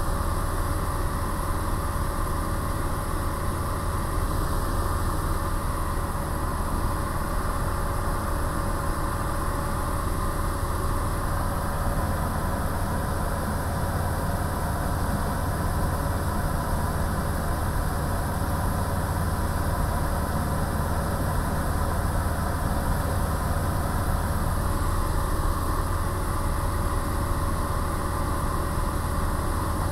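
Light single-engine propeller aircraft's engine and propeller droning steadily in cruise, heard from inside the cockpit.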